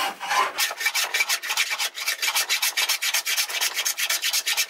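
Hand plane shaving a thin sapele board held in a vise, in rapid, even rasping strokes, several a second.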